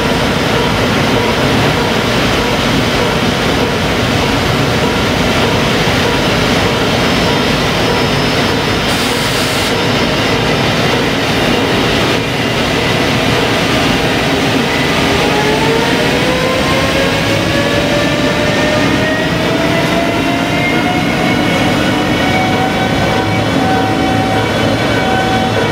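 JR Freight EF510 electric locomotive hauling a freight train at low speed, with a steady rumble of wheels and running gear. About halfway through, the whine of its inverter-driven traction motors rises in pitch and then levels off as the train picks up speed.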